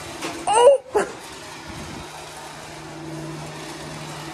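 Small RC toy car's electric motor whirring as it drives across concrete, with a steady hum that grows a little stronger in the second half. A short high-pitched vocal cry comes about half a second in, and a single sharp knock about a second in.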